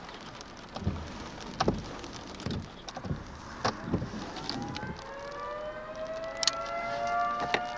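Outdoor civil-defense tornado warning siren winding up about five seconds in, its pitch rising and then holding steady. Before it, scattered sharp taps.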